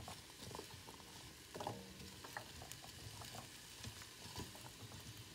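Wooden spoon stirring chopped sweet potato, onion and cherry tomatoes in a pan: faint scrapes and light knocks over a soft sizzle of sautéing vegetables.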